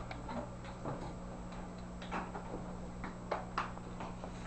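Quiet room tone with a steady low hum and scattered faint, irregular clicks and taps.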